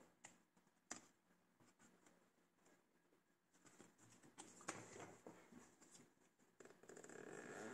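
Faint handling of a black leather messenger bag: scattered small clicks and taps as its hang tag is fingered, then a steadier, louder rustle near the end as hands work the front zipper pocket.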